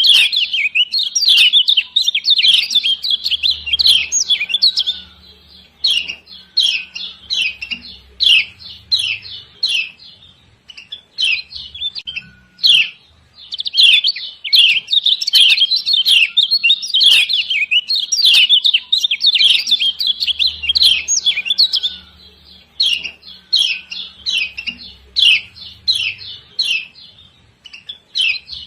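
Female kecial kuning (Lombok yellow white-eye) giving its 'ciak ciak' call: rapid runs of sharp, high chirps lasting several seconds at a time, broken by short pauses. This excited female call is the one keepers play to set males singing.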